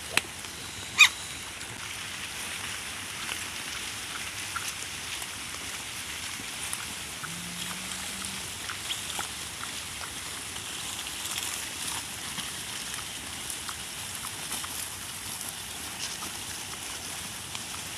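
Steady outdoor background rush, like running water, with scattered faint clicks. There is a sharp click about a second in and a short low tone a little before halfway.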